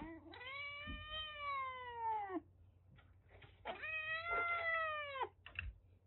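Calico kitten meowing at a Churu treat held up to its cage: two long drawn-out meows, each about two seconds, rising slightly then falling away.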